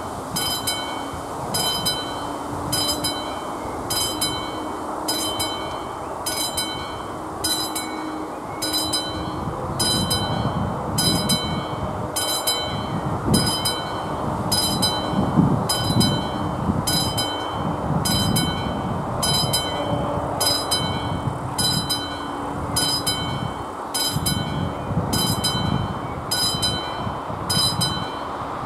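Classic electric bell of an AŽD 71 level-crossing warning signal ringing in regular strikes, a little over one a second, warning of an approaching train. A low rumbling noise underneath grows louder from about ten seconds in.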